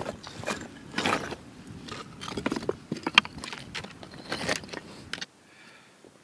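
Hiking boots crunching and scraping on loose rock in uneven steps, with the clicks of trekking pole tips on stone. The steps stop suddenly about five seconds in.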